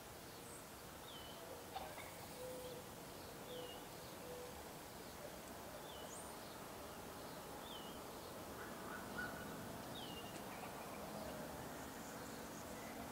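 Faint, high bird chirps, each a short falling note, about five of them spaced a few seconds apart over a quiet background.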